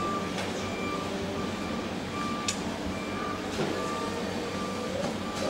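A vehicle reversing alarm beeps repeatedly at an even pace, all at one pitch, over a steady low hum. A couple of sharp clicks come in about halfway through.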